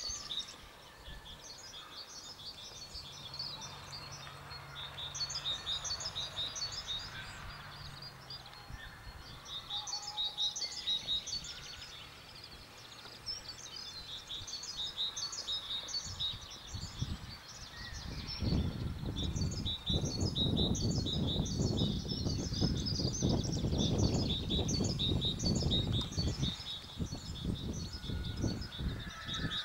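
Many small birds singing and chirping in a dense chorus. In the last third a louder, gusty low rumble comes and goes over it.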